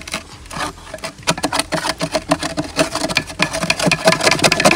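Rapid scraping and clinking of a metal spoon and fingers against a large metal cooking pot, digging out cooked rice and the burnt crust stuck to the pot's bottom; the strokes come thicker in the second half.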